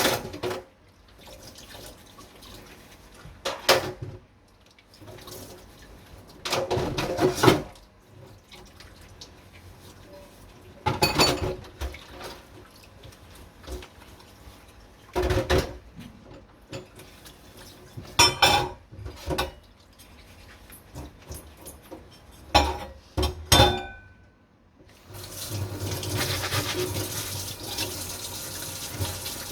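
Hand dishwashing at a kitchen sink: dishes, pots and pans clink and scrape in scattered bursts. About 25 seconds in, the tap is turned on and runs steadily into the sink.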